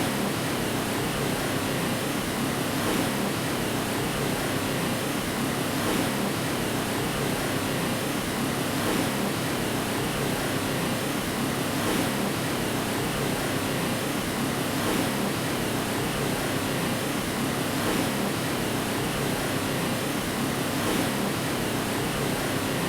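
Steady white noise for putting a baby to sleep: an even, unbroken rushing hiss, fullest in the lower middle range with little deep rumble.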